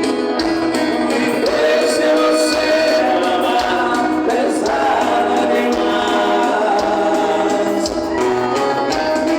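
A song in waltz time with singing voices over the accompaniment.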